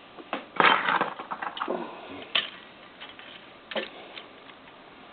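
Small die-cast toy cars being handled and set down: a scatter of clicks, clacks and light rattles, busiest in the first two seconds with another burst a little before four seconds.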